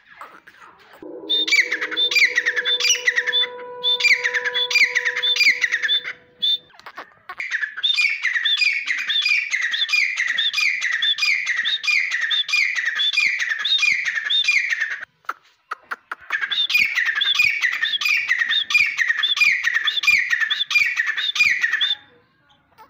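Grey francolin calling loudly: a fast run of rising, ringing notes, about two a second, in several bouts with short breaks between them. A faint steady hum runs under the first few seconds.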